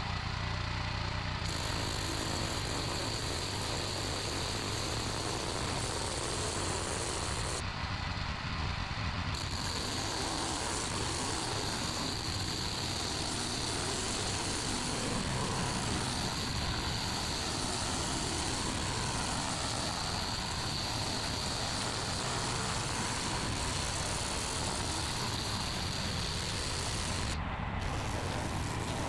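High-pressure washer running steadily at about 120 bar, its motor humming under the hiss of the water jet blasting the oak wood clean.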